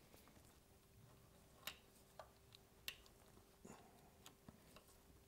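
Near silence broken by a few faint metallic clicks from a socket wrench being worked on a motorcycle's oil drain bolt as it is snugged down.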